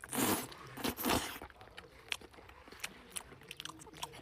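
A person biting into and chewing a chicken leg: two loud crunching bites in the first second and a half, then a run of small clicking chewing sounds.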